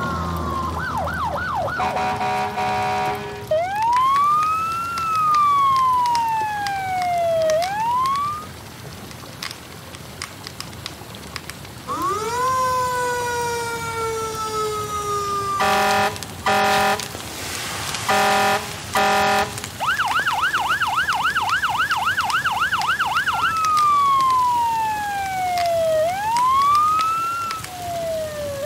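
Fire truck siren sound effects in sequence. A fast yelp opens, followed by a steady horn blast and a slow wail that rises and falls. A longer rising and falling glide follows, then a run of about five short horn blasts, a fast yelp, and the slow wail again.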